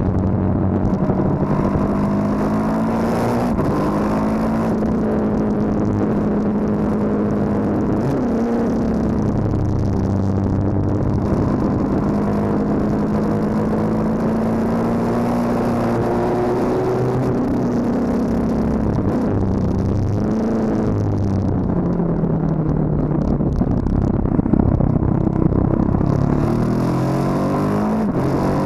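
KTM 1290 Super Duke R's V-twin engine running on track, heard from the bike. Its revs climb and fall over and over, with several quick pitch swings as it accelerates out of corners and slows into them.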